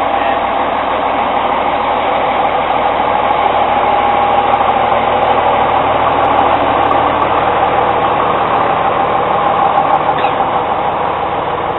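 Small diesel shunting locomotive's engine running steadily as the locomotive moves slowly along the track.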